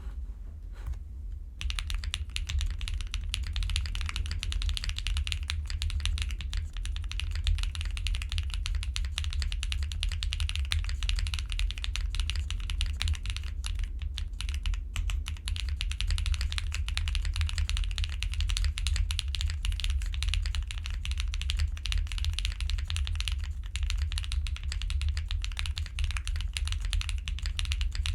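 Fast, continuous typing on a Simpler60 custom mechanical keyboard with lubed and filmed KTT Rose linear switches, GMK keycaps, Staebies stabilisers and all foam installed. A few keystrokes come first, then dense typing from about a second and a half in, over a steady low rumble.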